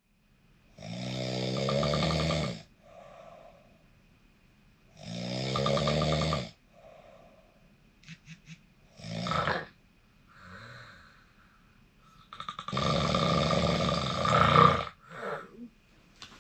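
A sleeping person snoring: two long snores about four seconds apart, each followed by a softer breath out, then a few short clicks and brief breathy sounds, and a third, longer and louder snore near the end.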